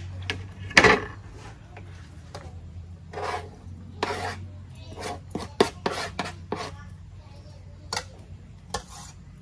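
A kitchen knife cutting green onions: one sharp knock on a plastic cutting board about a second in, then scattered light knife clicks and short scraping sounds.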